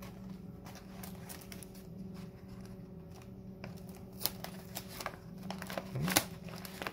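Crinkling and crackling of a padded paper mailer envelope being handled as clear tape is pressed and smoothed along its flap. The crackles grow busier over the second half, over a steady low hum.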